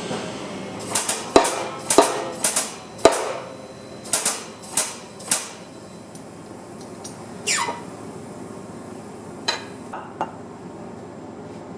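Hammer striking metal parts: about a dozen sharp, ringing blows in the first five seconds, the heaviest three about a second apart. Then a short sound falling in pitch, and a few light clicks near the end.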